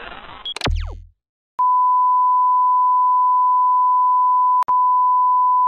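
A rising synthesized sweep cuts off in a short glitchy zap with a brief low buzz. After half a second of silence a steady, loud test-tone beep of the kind played with TV colour bars comes on, with a click and a momentary break about three seconds after it starts.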